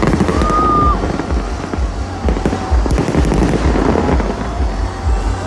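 Aerial fireworks going off overhead: a dense, continuous run of bangs and crackles.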